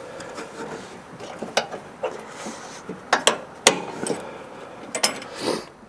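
Irregular sharp metallic clicks and clinks as the idler pulley's cable and tension spring are worked free on a snowblower's belt drive, with a short scraping rub near the end.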